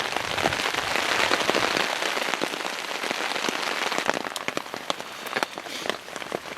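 Rain falling steadily on a tarp overhead: a dense hiss of rainfall with many separate drops ticking sharply on the fabric, heaviest in the first couple of seconds and then thinning out into more distinct drop hits.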